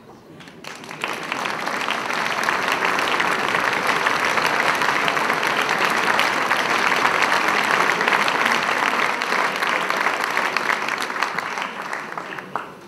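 Audience applauding in a concert hall. The clapping swells about a second in, holds steady, and dies away near the end.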